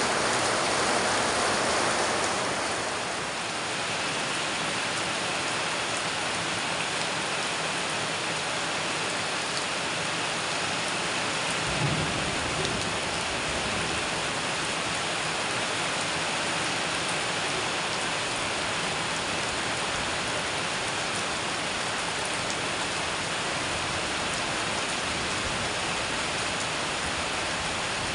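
Heavy rain pouring steadily onto corrugated metal roofs, a dense even hiss. About twelve seconds in, a brief low thump.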